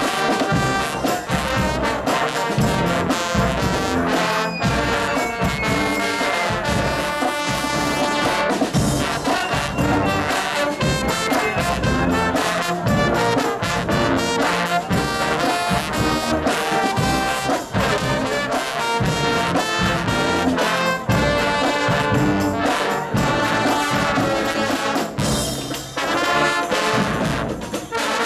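A low brass choir playing together: many low brass horns sounding full chords.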